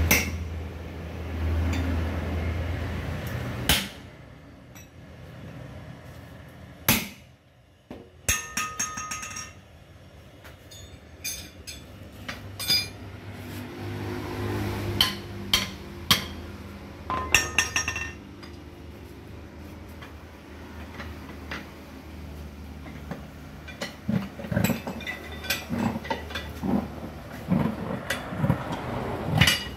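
Hammer blows and metal-on-metal clinks on a steel truck wheel rim as its lock ring is worked off by hand. The blows come singly and irregularly, some ringing, with quicker, lighter knocks near the end. A low rumble is heard during the first few seconds.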